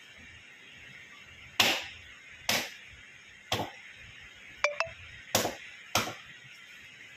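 Five sharp knocks at uneven intervals, like a hard object being struck, with a quick double metallic clink between the third and fourth.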